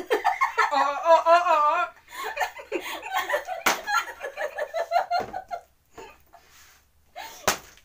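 Women laughing, a wavering laugh loudest in the first two seconds, then chatter and giggles. Sharp single knocks of a plastic water bottle on the tabletop come about four seconds in, once more a second later, and near the end.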